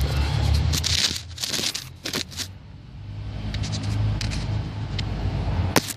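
Close rustling and scraping handling noise, with a few light clicks and one sharp click near the end, over a steady low rumble.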